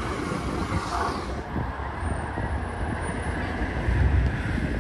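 Steady running noise of a large vehicle passing along the street, with the low rumble growing louder near the end.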